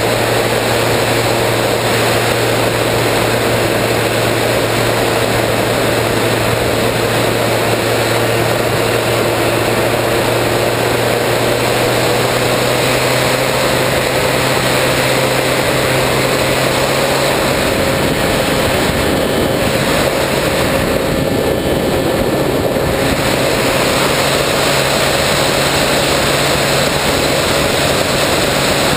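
Electric motor and propeller of an RC plane heard from its onboard camera in flight: a steady hum under a constant rush of noise, its pitch creeping slowly upward partway through.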